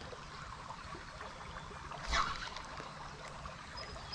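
Creek water flowing steadily, with one brief louder noise about two seconds in.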